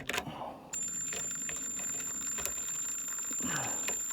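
Power drill driving a screw through a pilot hole into a split wooden roof-truss member, its motor running steadily with a high whine. It starts just under a second in.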